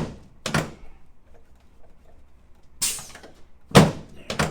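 Chiropractic adjusting table, its drop section snapping down under the adjustment thrusts: several sharp thunks, one about half a second in and three more in the last two seconds.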